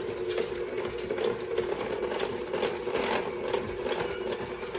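Electric mixer running steadily at one speed, its beaters beating an egg and vanilla into creamed butter and sugar, with a light irregular clatter of the beaters against the bowl.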